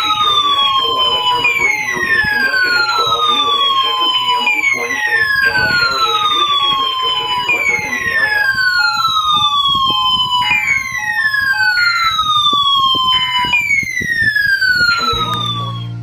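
Several weather radios alarming together for a weekly alert test: an electronic siren sweeping down in pitch about every three seconds, over intermittent beeping and a steady alert tone. It all cuts off near the end.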